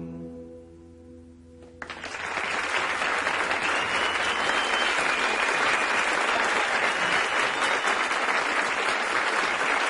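The song's last note fades away, and a little under two seconds in a concert audience breaks into applause that goes on steadily.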